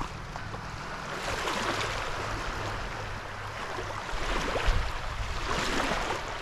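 Incoming tidal water rushing and lapping in the shallows, a steady hiss with small splashes, over a low rumble of wind on the microphone.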